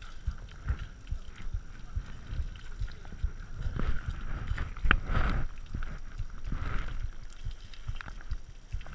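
Hose water spraying onto a mountain bike frame and the camera's waterproof housing, with rumbling knocks and rubbing as a gloved hand scrubs the frame, and a sharp click about five seconds in.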